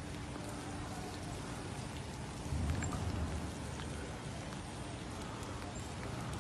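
Steady hiss of light rain falling, with a brief low rumble about two and a half seconds in.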